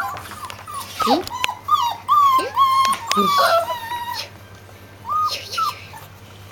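A litter of 38-day-old English golden retriever puppies crying out in overlapping high whines and yelps that slide up and down in pitch, busiest in the first half, with a couple of short calls past the middle.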